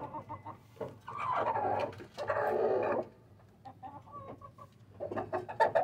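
Chicken clucking, two calls in the first half, then quieter light tapping as the hen pecks at feed in a metal plate, with more clucks near the end.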